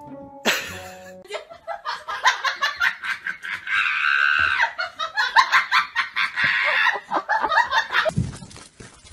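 A person laughing hard and long in rapid, high-pitched bursts, starting about a second in and dying away near the end, after a brief snatch of music at the start.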